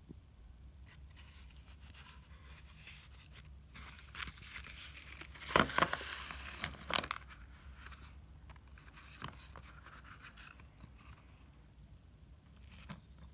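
Slate pencils and their cardboard box being handled: faint clicks and scrapes, with a louder run of clicks and rustling about five to seven seconds in as the box is moved over the pile.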